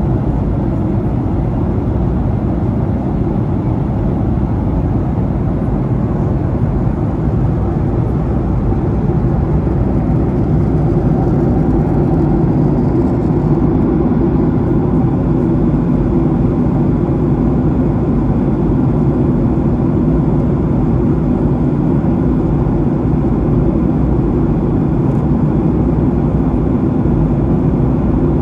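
Boeing 737-800 passenger cabin in flight: a steady low rumble of engine and airflow noise with a faint hum, growing slightly louder about ten seconds in.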